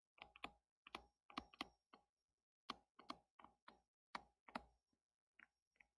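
Faint, irregular clicks and taps of a stylus on a touchscreen while words are handwritten, about a dozen in a few seconds.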